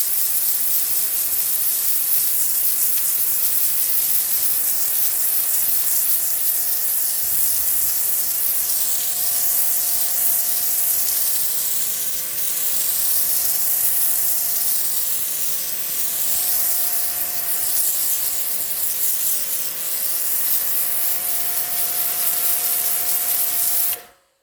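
REAIM 3500W electric high-pressure washer running, its narrow jet spraying onto pavement to blast off algae: a loud, steady hiss over a steady motor-pump hum, cutting off suddenly near the end.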